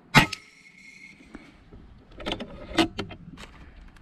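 A single shot from an FX Impact Mk3 PCP air rifle firing a 40-grain .217 rebated boat-tail slug, a sharp report about a quarter second in with a brief metallic ring after it. A few sharp mechanical clicks follow about two seconds later.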